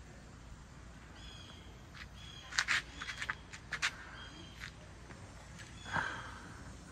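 Outdoor ambience with a bird calling in short, high notes repeated about once a second. A cluster of sharp clicks or taps comes about halfway through, and a brief louder sound near the end.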